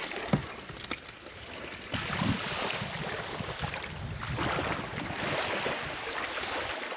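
Wind buffeting the microphone over small waves washing on the shore, coming in uneven surges. Two sharp clicks sound in the first half-second.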